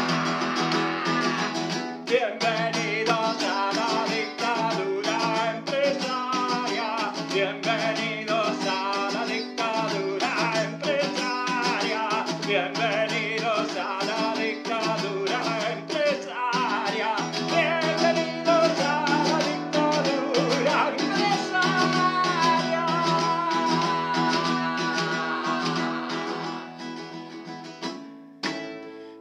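Instrumental break in a song: guitar playing with frequent plucked and strummed notes, dropping in level near the end before the vocal returns.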